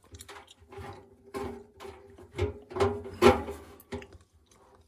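Plastic drum paddle knocking and scraping against the washing machine's metal drum as it is worked into its mounting holes, a string of irregular knocks with a brief ring after them, loudest about three seconds in.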